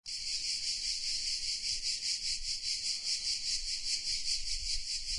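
Insects chirring in a steady, high-pitched buzz that pulses evenly several times a second, a summer-heat ambience.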